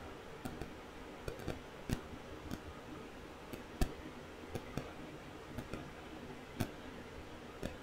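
Faint, irregular small clicks and ticks, about two a second and unevenly spaced, over a low steady hiss.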